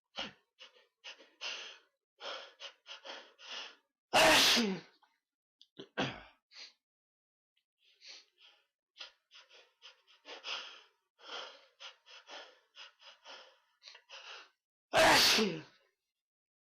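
A person sneezing loudly twice, about eleven seconds apart, with many short, quick breaths and sniffs between the sneezes.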